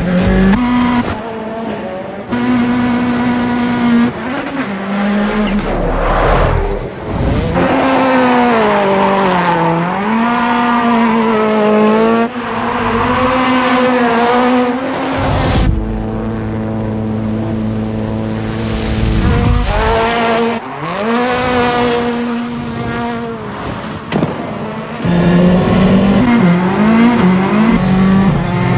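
Ford Fiesta rallycross race car's engine revving hard, its note climbing and dropping repeatedly through gear changes and throttle blips, with tyres squealing as the car drifts. The engine sound breaks off and changes abruptly several times.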